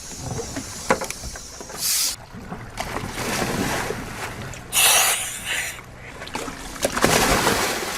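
Outdoor sounds aboard a small boat on the water: wind and water noise over a faint low motor hum, with three short loud bursts of rushing, splashing noise.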